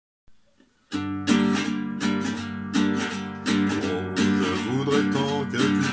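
Acoustic guitar strumming a chord introduction to a song, coming in about a second in with a steady rhythm of about three strums a second.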